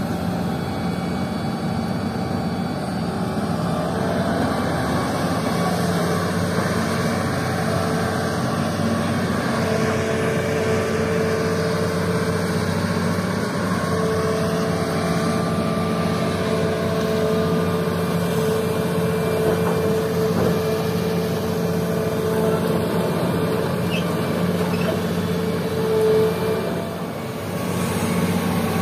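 Hitachi hydraulic excavator's diesel engine running steadily as the machine moves on its tracks through shallow water. A steady higher hum joins about ten seconds in and stops shortly before the end.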